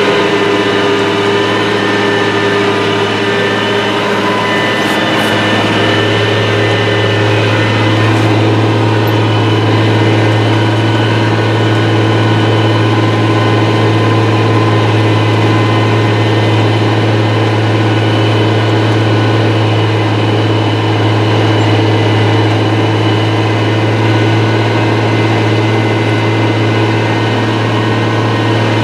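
IH 3788 2+2 tractor's turbocharged six-cylinder diesel running steadily under load as it pulls a chisel plow, heard from inside the cab.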